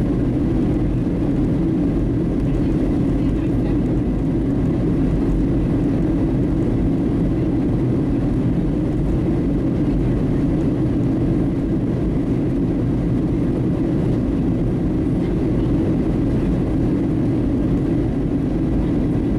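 Steady low roar inside the cabin of a Boeing 737-700 in descent: its CFM56-7B turbofan engines and the rush of air over the airframe, heard from a window seat beside the wing.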